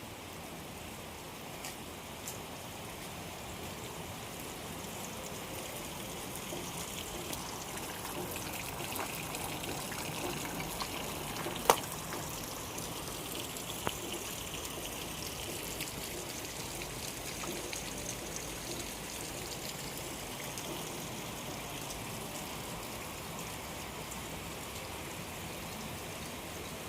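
Light rain falling steadily, an even hiss of drizzle with trickling water. A single sharp click sounds near the middle, with a fainter one a couple of seconds later.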